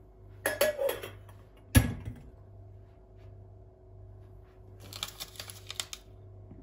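Small clicks and knocks on a tabletop: a brief rattle, one sharp knock about two seconds in, then a run of quick clicks near the end.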